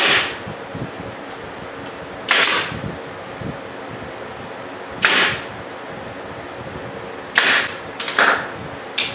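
Staple gun firing staples through a thin hardboard drawer face plate: a series of sharp shots, a couple of seconds apart at first, then several in quick succession near the end.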